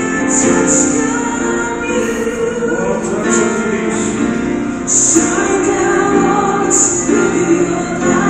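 Slow gospel worship chorus sung by a female-led group of voices, with choir joining, over keyboard accompaniment.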